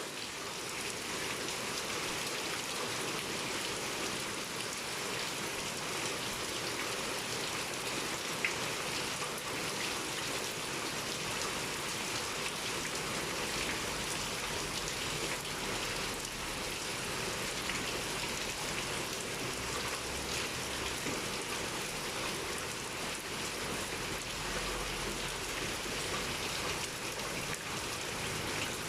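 Heavy rain pouring steadily, an even hiss of falling water, with one sharper tick of a drop striking about eight seconds in.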